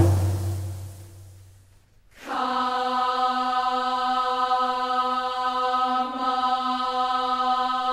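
Background music fades away, and after about two seconds one long vocal note, like a choir or chant, comes in and is held steadily on one pitch.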